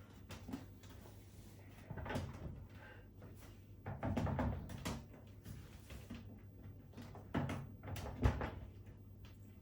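Irregular clunks, knocks and scraping from hands and a tool working at the back of a washing machine to free a stuck bolt, with a longer scrape about four seconds in and a sharp knock near the end.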